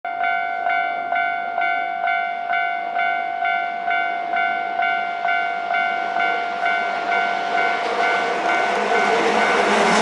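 Japanese level-crossing warning bell ringing in an even rhythm of about two strokes a second, while a Hankyu 6000 series electric train approaches; the train's running noise grows louder over the last few seconds until it drowns the bell, then cuts off suddenly.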